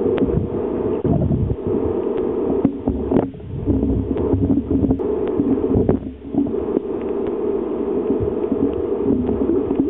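Muffled rumbling and rubbing with many small knocks and clicks from a camera being jostled about on a kayak.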